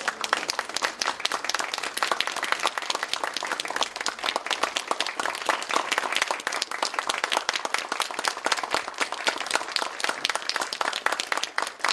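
Audience applauding steadily after the final notes of a traditional Korean music performance.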